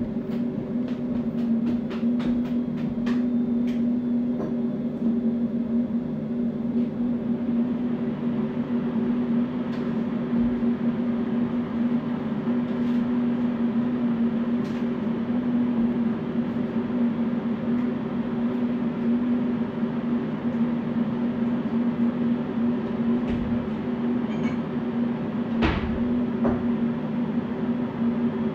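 Laser back-glass removal machine running a pass over an iPhone's broken back glass: a steady hum with a few light clicks in the first few seconds and one sharp click near the end.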